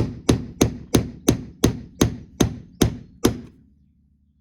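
Hammer blows on metal, about three a second, ten in a row, knocking out a stuck fixing; the hammering stops a little after three seconds in.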